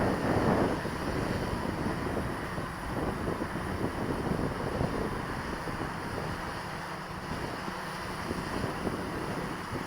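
Wind blowing across the microphone in uneven gusts, loudest about half a second in.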